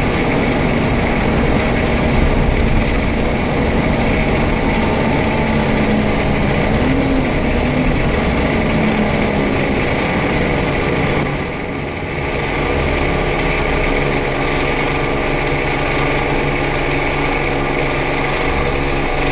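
Scania N94UD double-decker bus under way, heard from inside the passenger saloon: steady diesel engine and road noise, with a short drop in level about eleven seconds in before it picks up again.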